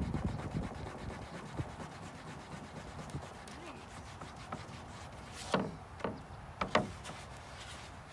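A wet cloth rubbing and scrubbing on a coated panel, working spray paint off an anti-graffiti finish, with a rhythmic rub in the first seconds. Three short sharp sounds stand out a little past the middle.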